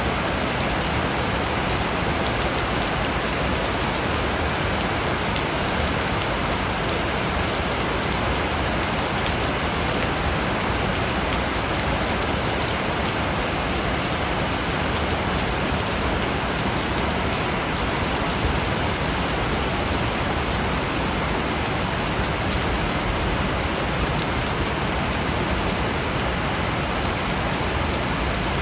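Steady rainfall: an even hiss with scattered ticks of individual drops striking a surface.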